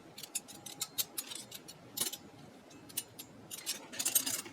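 Stainless steel and silver-plated flatware clinking as pieces are picked out of a box and sorted: scattered light metal clicks, about one a second, with a quick flurry of clinks near the end.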